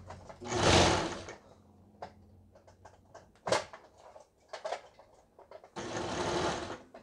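Brother XL5130 household sewing machine stitching through fabric in short runs: a brief run about half a second in, a few clicks, then a steady run starting near the end. The running is loud, which the repairer puts down to the hollow sides of its case resonating.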